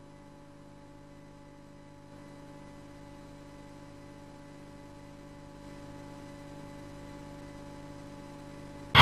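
Faint, steady electrical hum made of several constant tones, growing slightly louder in two small steps. Right at the end, loud theme music cuts in abruptly.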